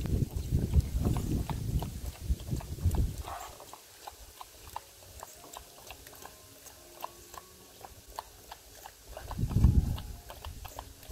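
A Siberian husky and an Alaskan malamute eating from bowls: wet lapping and chewing. It is loud and busy for the first three seconds, drops to scattered small clicks, and comes back as another loud burst near the end.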